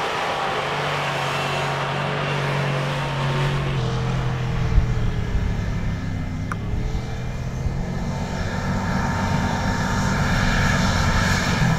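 Off-road 4x4's engine running under load as it climbs a loose volcanic-cinder slope, a steady drone that shifts in pitch about four seconds in and rises near the end.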